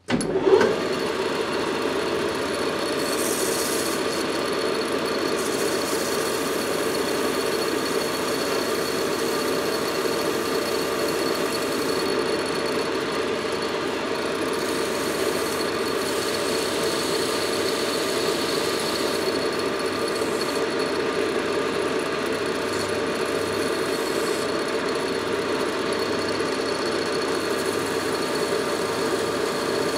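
Metal lathe switched on and running steadily with a steady high whine, spinning a tractor starter armature while its copper commutator is polished with an abrasive strip held against it by hand.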